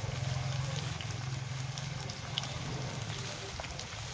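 Slices of maling (canned luncheon meat) sizzling in shallow oil in a frying pan: a steady hiss with scattered small crackles. A low hum fades away over the first couple of seconds.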